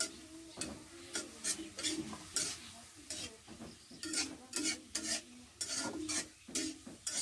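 A metal spatula scrapes and stirs sliced onions frying in oil in a wok, with short, irregular strokes about two or three times a second. The onions sizzle underneath.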